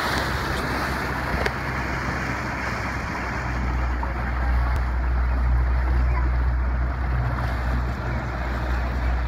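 Small boat's outboard motor running at low speed, a steady low hum that grows louder about three and a half seconds in, over the rush of water and wind against the microphone.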